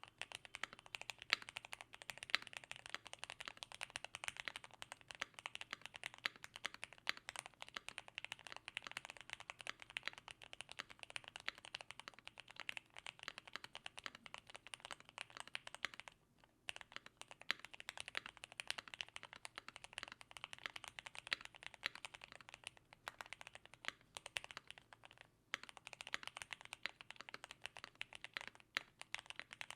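Fast continuous typing on a Keychron Q1 mechanical keyboard with lubed Gateron Milky Yellow linear switches and PBT keycaps, foam-, tape- and polyfill-modded, giving a muted clacking. The typing pauses briefly twice, about halfway through and again some nine seconds later.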